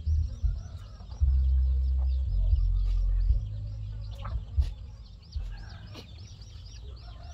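Hens clucking, over a fast, even, high-pitched chirping that repeats several times a second. A loud low rumble cuts in and out during the first three seconds and is the loudest sound, then dies away.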